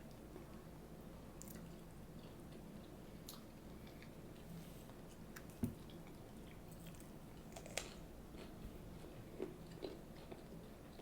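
Faint close-up chewing and biting of seafood boil food, with scattered small clicks and crunches, and one dull thump a little past the middle.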